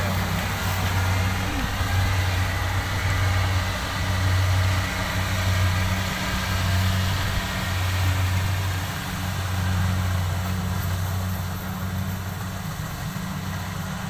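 Tracked rice combine harvester running as it cuts, a steady low engine drone that swells and dips every second or so and grows a little fainter over the last few seconds as the machine moves away.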